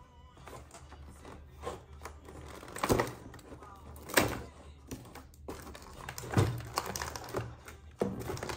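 Hands handling cardboard and plastic packaging: a few sharp knocks and taps, about four louder ones spread through, with light rustling between.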